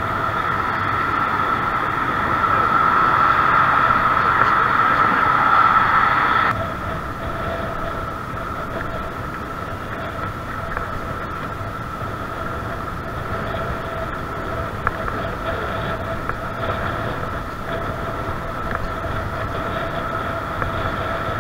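Riding noise from a camera on a moving bicycle: wind and tyre rush with a steady whine. The sound drops suddenly about six and a half seconds in, then carries on evenly.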